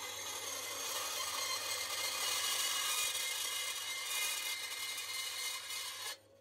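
Bandsaw blade cutting through sheet aluminium, a steady rasping noise as the plate is fed along the line, which cuts off suddenly near the end.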